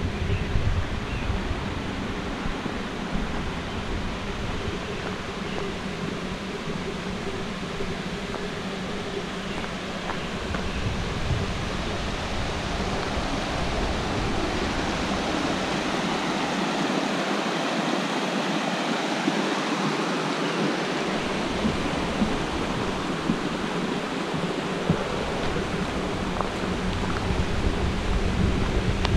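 Water cascading over a small dam in a steady rushing roar. Under it runs a deep rumble that drops away for a few seconds about two-thirds of the way through.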